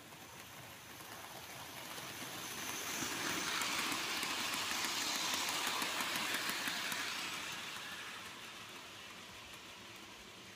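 Model railway goods train passing close by, the wheels of its vans and wagons rolling and clicking along the track. It swells up over the first few seconds, is loudest between about four and seven seconds in, then fades away.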